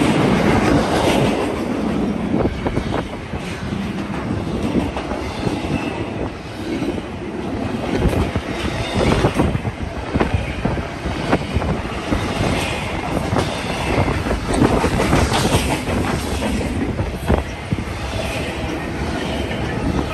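Double-stack intermodal container freight train rolling past at close range: a steady rumble of steel wheels, with irregular clacks as the wheels cross the rail joints.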